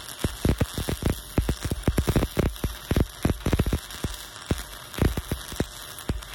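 Stick-welding arc from a cellulose-coated pipeline electrode burning on the pipe joint: a steady crackling hiss broken by many irregular sharp pops, several a second.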